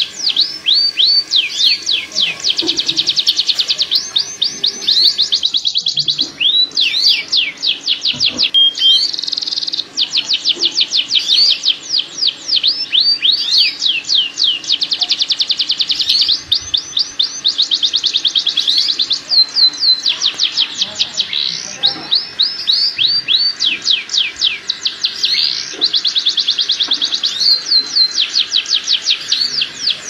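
Domestic canaries singing a courtship song of long rolling trills: fast runs of repeated downward-sweeping notes, phrase after phrase with short breaks. It is a male canary in full breeding song, played as a lure to bring canaries into breeding condition.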